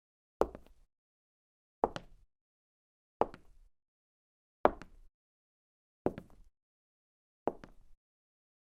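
A woman's footsteps at a slow, even walk: six steps about one every second and a half, each a sharp hit followed at once by a lighter second tap, heel then toe, with silence between steps.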